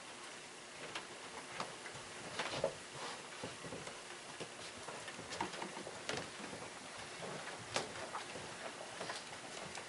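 Scattered light clicks and small taps with faint rustling in a quiet room, irregular and a few a second: the handling of communion cups and trays.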